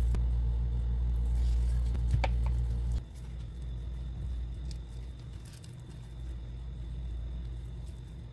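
Steady low mechanical hum that drops suddenly to a much quieter hum about three seconds in, with a couple of light clicks shortly before the drop.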